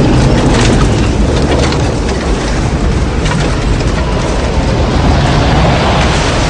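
Tornado sound effect: a loud, steady rumble of storm wind with scattered crackles over it.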